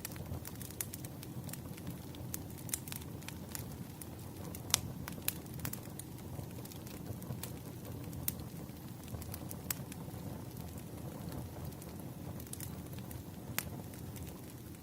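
Wood fire crackling: a steady low rumble of burning logs with scattered sharp pops and snaps.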